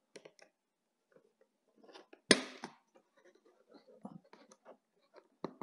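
Scissors snipping the plastic ties that hold a toy in its cardboard packaging, among small clicks and rustles of the box, with one sharp snip a little over two seconds in.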